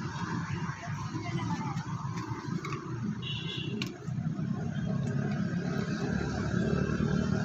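Irregular low rumble of wind buffeting a phone microphone outdoors. About two thirds of the way through, steady tones of background music come in.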